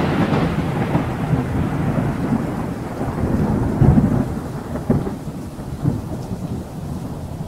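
A low, noisy rumble slowly dying away, with brief swells about four, five and six seconds in.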